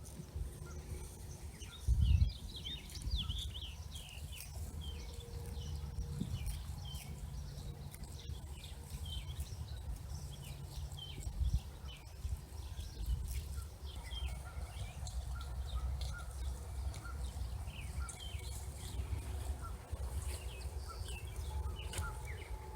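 Small birds chirping and twittering in short calls over a steady low rumble, with a thump about two seconds in and another near the middle.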